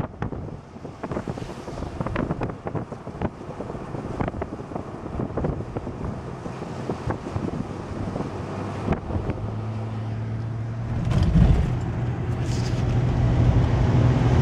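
A vehicle travelling on the road, with many small rattles and knocks over road and wind noise. About nine seconds in, a steady low engine drone comes in, and there is a heavier low rumble a couple of seconds later.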